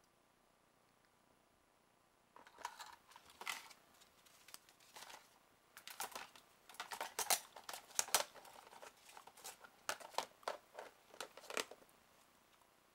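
Resin kit parts, paper instructions and a clear plastic tub being handled and packed: irregular clicks, taps and paper rustling start about two seconds in and are busiest in the middle.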